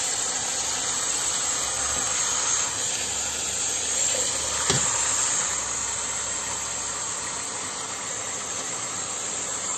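A steady hiss with one short, light knock about halfway through.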